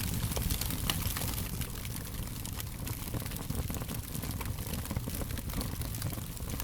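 Wood fire crackling: a steady low rumble of burning with many small sharp pops and snaps scattered throughout.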